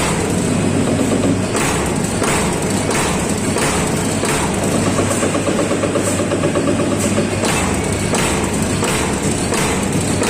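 CNC turret punch press punching stainless steel sheet, one thud about every 0.7 seconds over the machine's steady hum.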